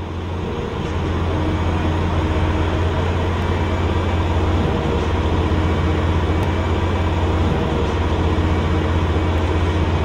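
Heavy engine of construction machinery running steadily at a night job site, a loud deep drone over a wash of mechanical noise. It rises in level over the first second.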